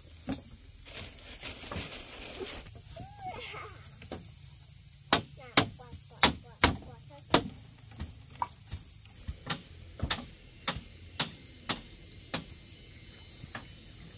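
Insects chirring steadily at a high pitch, with a run of about a dozen sharp knocks, roughly two a second, starting about five seconds in and growing fainter toward the end.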